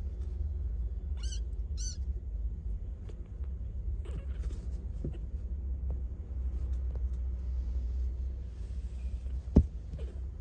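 Tiny British Shorthair–Ragdoll cross kitten mewing twice in quick succession, high-pitched, about a second in, amid soft rustling and small taps of kittens tussling on a blanket. A single sharp tap near the end is the loudest sound.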